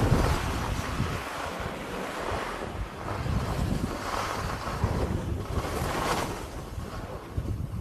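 Wind buffeting the camera microphone, mixed with the hiss and scrape of skis sliding over packed snow, the noise swelling and fading with the turns.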